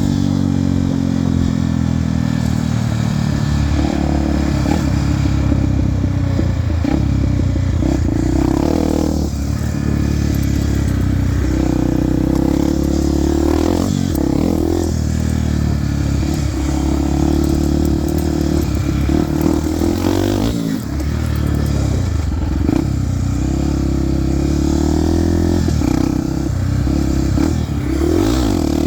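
Honda XR250 Tornado's single-cylinder four-stroke engine revving up and dropping back over and over, with a brief dip every few seconds, as the bike is ridden for wheelies.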